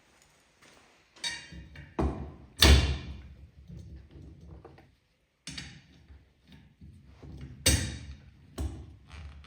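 Irregular knocks and thuds of wooden plywood parts being handled and fitted together, about six sharp hits with short gaps between, starting about a second in.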